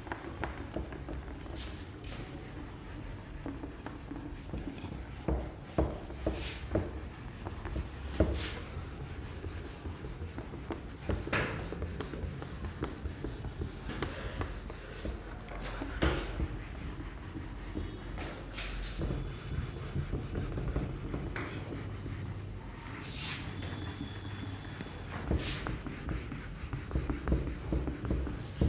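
Cloth duster rubbing marker writing off a whiteboard, a scratchy, irregular wiping sound with scattered short knocks as it sweeps and presses against the board.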